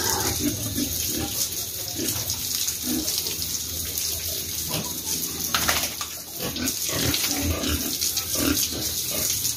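A garden hose spraying water over fattener pigs and onto a wet concrete pen floor, washing off caked mud, with the pigs grunting now and then.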